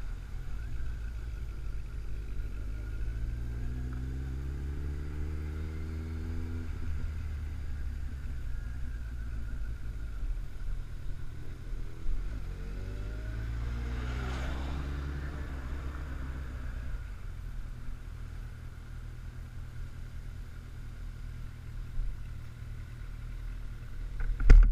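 Kawasaki ZX-14 inline-four engine heard from on the bike, revs climbing twice under light throttle and dropping back each time, then running low and steady. A single sharp thump just before the end.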